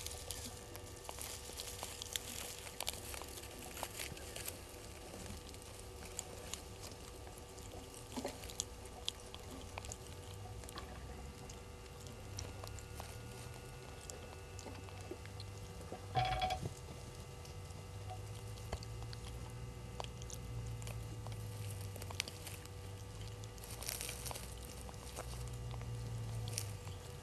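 Faint rustling and crackling of dry leaves and grass as a vervet monkey forages in the leaf litter, with scattered small clicks over a low steady hum. One brief, sharper sound stands out about sixteen seconds in.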